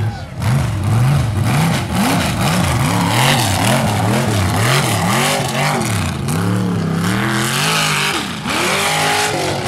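Mega truck's big engine revving up and down over and over, roughly every two-thirds of a second, as the lifted pickup spins its tractor tyres through dirt.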